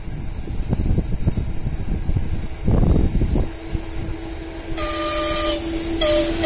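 VL10u electric locomotive approaching with a maintenance train, its wheel rumble and a steady hum growing louder. It sounds its horn twice: a short blast about five seconds in, and a second starting about a second later.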